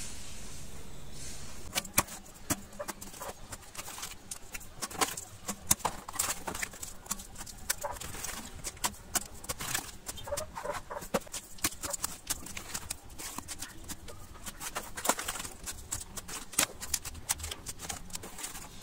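Coffee capsules clacking against a black wire capsule rack as they are slotted in one after another, an irregular run of light clicks and knocks starting about two seconds in.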